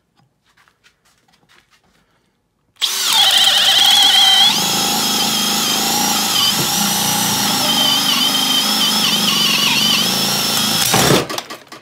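Makita XPH07 brushless 18V hammer drill, in drill mode on speed 2, boring a 1-inch self-feeding auger bit through a wooden board. It starts suddenly about three seconds in, its whine drops a little in pitch under load a second or so later, runs steadily, and stops near the end as the bit breaks through.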